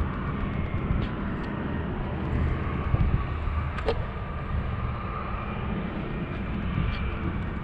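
Scooter ride on asphalt: wind buffeting the microphone over a steady rush of rolling tyres, with a faint steady whine and a couple of light clicks.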